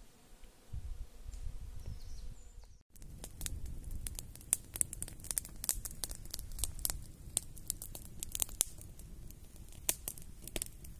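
Wood fire crackling, with many sharp, irregular pops. It is preceded by a low rumble, and the sound cuts out briefly about three seconds in.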